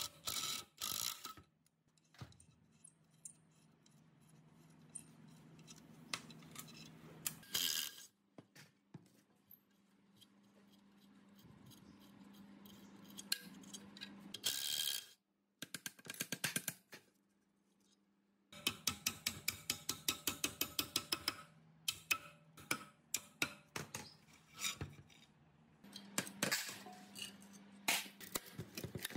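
Bolts being undone on a concrete vibrator motor's end cover: short runs of a power driver with a socket, a stretch of rapid, even ratchet-like clicking, and metal parts clinking and knocking as they are handled. A faint steady hum sits underneath.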